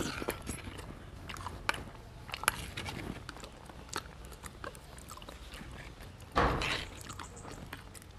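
A man chewing meatballs in peanut sauce, with wet mouth sounds and scattered small clicks of a metal spoon and fork on a plastic plate. A brief louder rush of noise comes a little over six seconds in.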